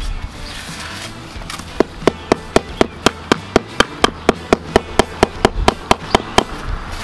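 Rubber mallet tapping a stone veneer piece to bed it into fresh mortar on a concrete block wall: a quick, even run of about twenty light knocks, roughly four a second, starting about two seconds in and stopping shortly before the end.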